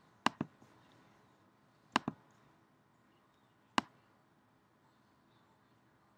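Computer mouse clicking: a quick double click, another double click about two seconds later, and a single click near the middle, with quiet in between.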